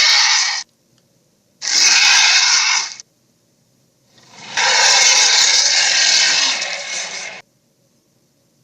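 Three harsh, noisy creature roar sound effects, each cut off sharply: the first ends about half a second in, the second lasts about a second and a half, and the third, the longest, lasts about three seconds.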